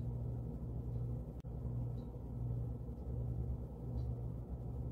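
A low, steady rumble with a hum under it.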